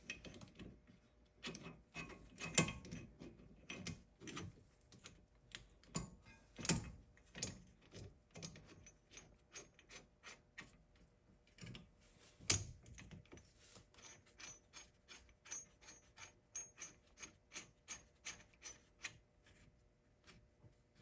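Faint, irregular metallic clicks and knocks of a brake caliper piston tool being fitted and worked against the caliper, with a run of quick light ticks in the second half.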